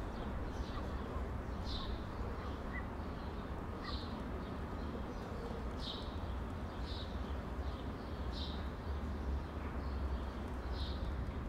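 Wind buffeting the microphone, a steady low rumble, with a small bird giving about seven short, high chirps scattered through it.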